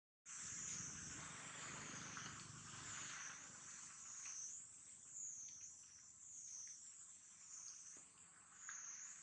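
Insects droning steadily in a high-pitched chorus that wavers gently in pitch.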